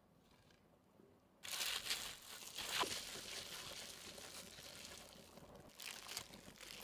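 A hand in a disposable plastic glove mixes raw minced-meat filling in a wooden bowl: steady crinkling of the plastic glove with wet squishing of the meat, starting suddenly about a second and a half in.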